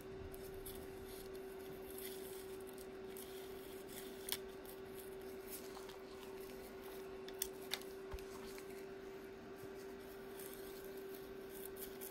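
Faint handling noise: a flexible magnetic viewing film sheet being moved and tapped against the metal face of an AC compressor's magnetic clutch pulley, with a few sharp clicks about four seconds in and twice near the middle, over a steady faint hum.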